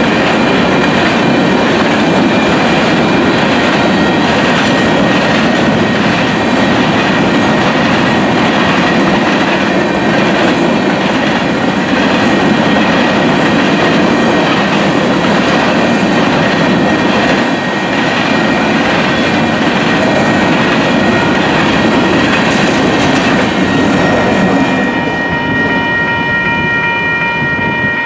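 Union Pacific grain train's covered hopper cars rolling through a grade crossing, with the crossing bells ringing steadily over the rolling noise. About 25 seconds in the train noise drops away, leaving the bells ringing on their own.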